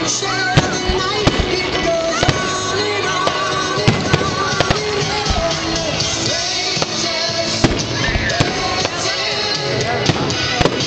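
Fireworks going off over a loud song with singing: sharp bangs and crackles about every second or two, under the music.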